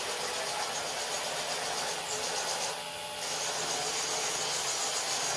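Small FTC competition robot's electric drive motors and wheels whirring steadily as it drives across the field tiles.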